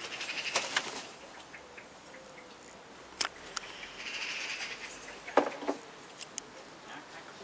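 Phone microphone handling noise: rustling against a fleece jacket in the first second, then a few sharp knocks and clicks as the phone is moved.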